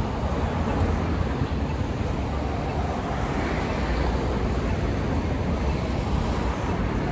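Steady road traffic noise: vehicles passing, with a continuous low rumble.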